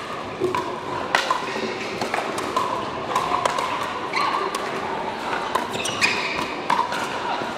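Pickleball paddles hitting the hollow plastic ball in a soft dinking rally: a string of sharp, irregularly spaced pops, echoing in a large hall over a faint murmur of voices.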